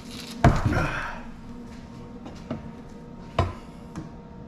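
A few sharp knocks and clunks from handling and cutting a thick old welding cable to strip out its copper, the loudest about half a second in and another near the end.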